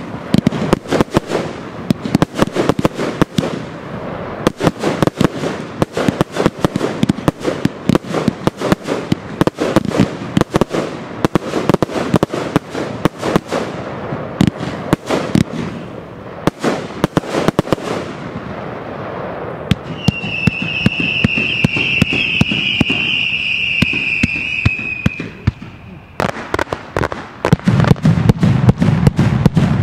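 Fireworks display: a dense, rapid string of cracks and bangs for most of the time. About twenty seconds in, the crackling thins out under a steady high whistle lasting about five seconds. After that the cracks start again, with heavier low booms near the end.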